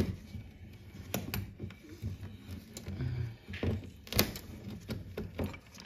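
Socket wrench working the wiper spindle nut loose on a VW Karmann Ghia scuttle: scattered metallic clicks and light knocks at irregular intervals as the wrench is worked back and forth.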